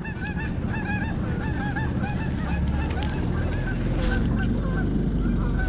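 A flock of geese honking, many short calls overlapping in quick succession, over a steady low rumble that grows louder about halfway through.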